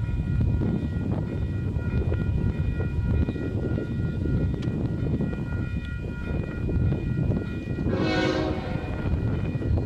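CP freight train's diesel locomotives rumbling as they approach, with a railroad crossing bell ringing steadily. About eight seconds in, the locomotive sounds one short horn blast.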